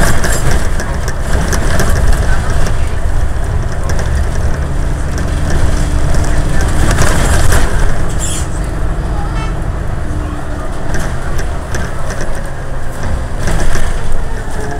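Alexander Dennis Enviro500 double-decker bus heard from inside while driven hard: a heavy, steady engine and drivetrain rumble with road noise and rattling of the body and fittings. A faint whine rises over it for a few seconds about halfway through.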